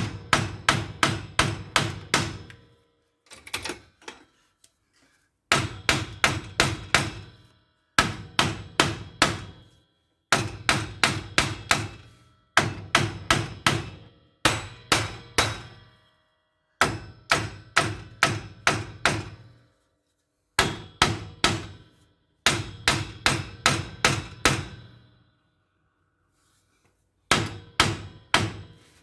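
Hammer blows on metal, struck in repeated bursts of four to six quick blows with short pauses between, each blow ringing briefly: a front suspension part being driven into place.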